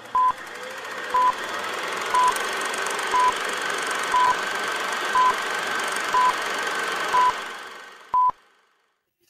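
Film-leader countdown sound effect: a short high beep once a second, nine times, over a steady hiss. The last beep is slightly longer, and the hiss fades out just after it.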